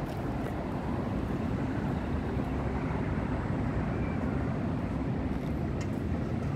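Tram running along the line, heard from inside the car: a steady low rumble of motors and wheels on rail, with a few faint clicks.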